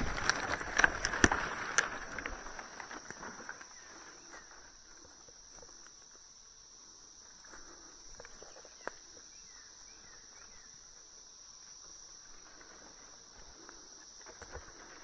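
Steady high-pitched insect chorus. Rustling and twig snapping in brush come over it during the first two or three seconds.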